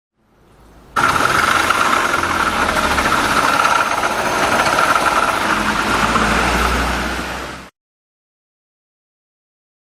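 Honda Little Cub's small single-cylinder engine running with a rattling, binding noise from the transmission, a steady high note sitting over the engine's rumble; the noise is put down to a failing bearing in the transmission. It starts abruptly about a second in and cuts off suddenly near the end.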